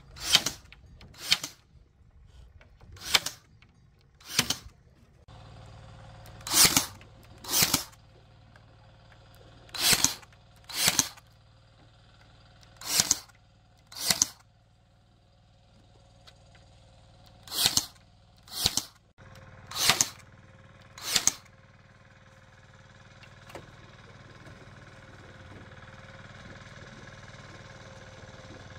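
Sharp blows of a hand tool on wood or bamboo, fourteen in all, struck in pairs about a second apart with a pause of two or three seconds between pairs. The blows stop about 21 seconds in.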